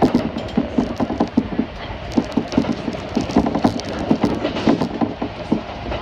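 Kintetsu Nara Line electric train running at speed, heard from inside the car: a steady running hum with rapid, irregular clicks and knocks throughout.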